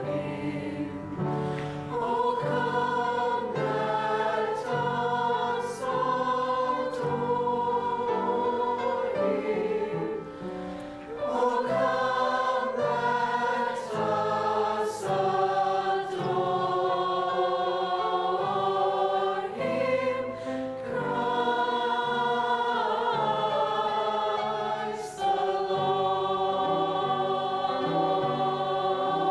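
A choir singing a Christmas carol in sustained chords, the notes changing about every second, with a short softening about ten seconds in.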